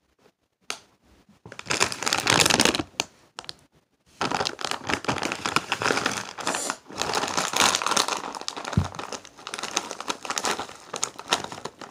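Bag of Takis chips crinkling as it is handled: a short stretch around two seconds in, then a longer run from about four seconds on.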